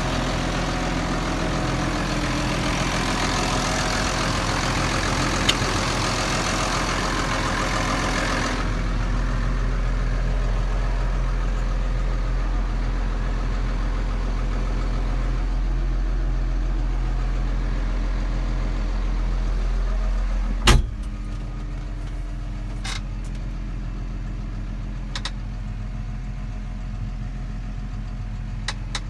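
New Holland T7030 tractor's six-cylinder diesel engine idling steadily, with a loud rushing noise over it for the first eight seconds or so. A single sharp knock comes about two-thirds of the way through, after which the engine sounds quieter, with a few lighter clicks.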